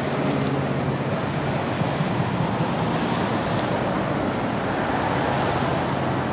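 Street traffic: cars running at a town intersection, a steady hum of engines and road noise.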